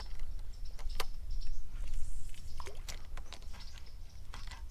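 Scattered sharp clicks and light taps from handling a spinning rod and reel as the lure is worked, over a steady low rumble.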